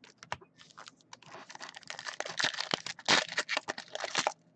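2016 Topps Finest trading-card pack wrappers being ripped open by hand, the tightly wrapped packs crinkling and tearing in a rapid run of sharp crackles and clicks, busiest in the second half.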